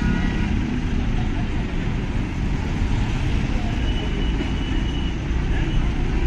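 Steady low rumble of road traffic and vehicle engines, with a faint thin high tone entering in the second half.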